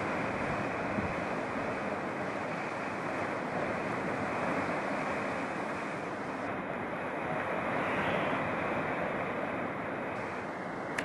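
Rough sea surf breaking and foaming over shoreline rocks: a steady wash of noise that swells a little about eight seconds in.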